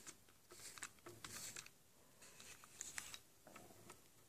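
Faint, scratchy rubbing of a plastic pinewood derby wheel's inside edge being worked into graphite flakes on an aluminum block, in a few short strokes.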